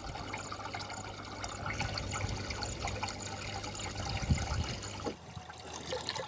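Water splashing and trickling steadily as a submersible cooler pump's outlet pipe pours culture solution back into a large plastic drum, circulating it to aerate it, with a low steady hum underneath. About five seconds in, the hum stops and the sound drops quieter.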